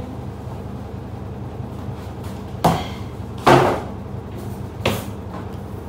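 Three dull knocks as a large plastic whey-protein tub and a cardboard box are handled and set down on a kitchen countertop, the second the loudest, over a steady low hum.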